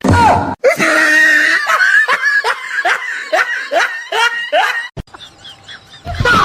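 A person laughing hard: a loud run of high 'ha' bursts, each falling in pitch, about two or three a second, breaking off about five seconds in.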